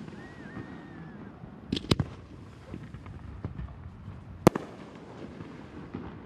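Aerial firework shells bursting: a quick double bang about two seconds in and a single loud bang about four and a half seconds in, with fainter pops between them.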